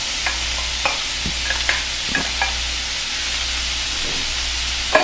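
Diced onions sizzling in hot oil in a nonstick pan as sliced mushrooms are tipped in, with a few light taps scattered through and a sharper knock near the end.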